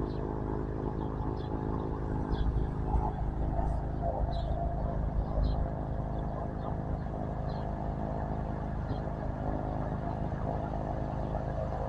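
Cessna Caravan's PT6 turboprop idling on the ground: a steady hum with several steady tones that swells slightly a few seconds in.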